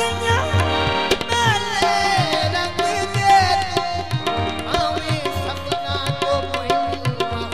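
Live qawwali music: tabla drumming a steady beat under harmonium melody.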